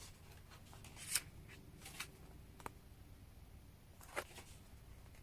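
Faint handling of paper and photo cards: a few short, soft rustles and taps spaced out over several seconds against a quiet low room hum.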